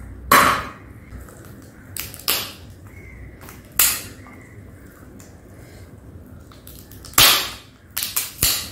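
Crab shell and body being cracked and torn apart by hand: a string of sharp cracks and snaps, a few seconds apart, with a quick run of them near the end.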